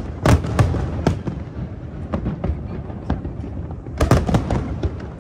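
Aerial firework shells bursting in volleys of sharp bangs. A dense cluster comes in the first second, then scattered single cracks, then another burst of bangs about four seconds in, over a steady low rumble.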